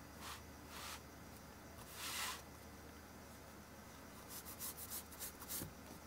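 Faint pencil and hand sounds on a paper workbook page: a few short soft scrapes, then a quick run of small clicks and rustles about four seconds in.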